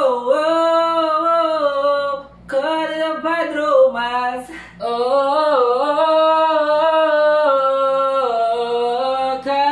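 A person singing unaccompanied in long held notes, broken by two short pauses about two and a half and four and a half seconds in.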